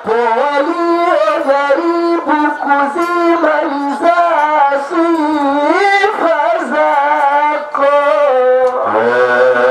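A solo voice sings a qaswida melody in long, ornamented phrases with sliding notes. Near the end a lower, steadier part comes in underneath.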